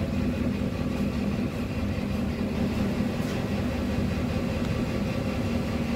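Steady low drone of a tanker's engine and machinery heard from inside the ship, with a broad rushing noise over it.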